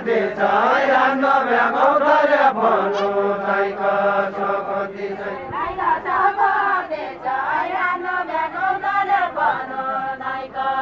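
A group singing a deuda folk song unaccompanied, chanting the lines together with long held notes and gliding phrases.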